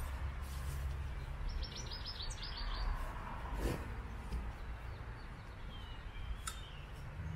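A small bird calling a quick run of about eight short high chirps about two seconds in, over a steady low rumble. The nylon tent carry bag rustles as its straps are handled, with a sharp buckle click near the end.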